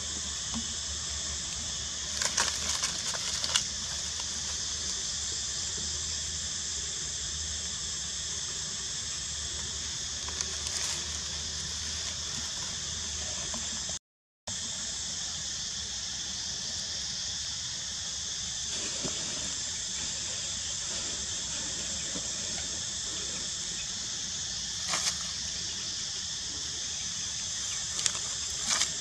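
Steady, high-pitched drone of insects, with a few short clicks or rustles about two to three seconds in and again near the end. The sound cuts out for a moment about halfway through.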